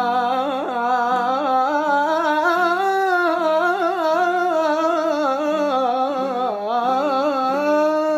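A solo voice singing a long, drawn-out melismatic phrase in Arabic style, the pitch bending and wavering in ornamented turns without pausing.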